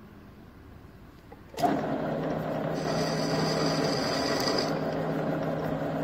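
Sterling centre lathe switched on with a click about a second and a half in, then its spindle and gearing running steadily with a low hum. From about three seconds to nearly five a thin high squeal rides on top as the tool tip scores a circular mark on the turning steel bar.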